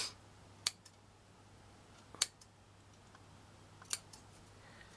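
Scissors snipping through a lace doily: four short, sharp snips, spread unevenly a second or two apart.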